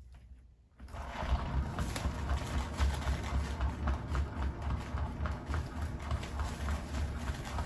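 Spinner turntable for paint pouring spinning a canvas: a fast, continuous rattling clatter with a low hum underneath, starting about a second in.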